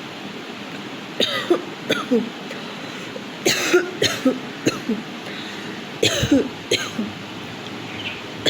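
A woman coughing repeatedly in short clusters, mixed with throat clearing; the strongest cough comes about three and a half seconds in.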